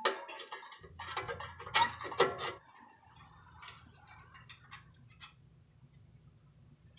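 Metal clinks and knocks from handling an exhaust tailpipe and its rusty mounting bolts, the loudest about two seconds in, followed by a few seconds of light, quick ticking.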